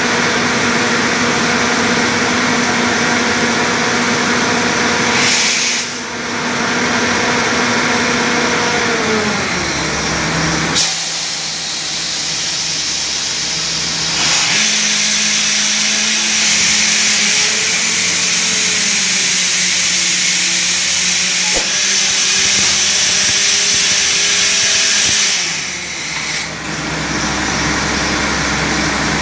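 Borewell drilling rig and its air compressor running steadily. About a third of the way in the engine's pitch sinks, and from about halfway until a little before the end a loud hiss of compressed air blows through, then stops.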